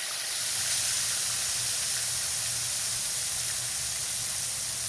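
Turkey cutlets frying in hot grapeseed oil in a skillet: a steady sizzle.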